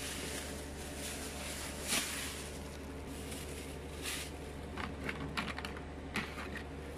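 Dry crackling and clicking as a hand rummages through brittle dried fish in a plastic bucket, the clicks bunched in the second half, over a steady background hiss and low hum.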